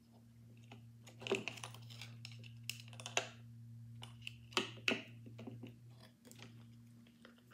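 Metal clicks and scraping as an arbor is worked into a Victor III phonograph's mainspring barrel to hook the new spring. The clicks come irregularly, with the loudest ones in two clusters about a second and four and a half seconds in, over a steady low hum.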